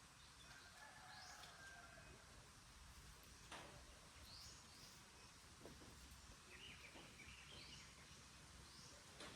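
Near silence with faint bird chirps: short rising calls repeated every couple of seconds, and a faint click about three and a half seconds in.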